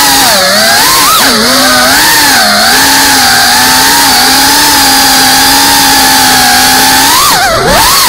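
FPV racing quadcopter's brushless motors and propellers whining loudly, the pitch rising and falling with throttle. It holds fairly steady in the middle, then drops sharply and surges back up near the end.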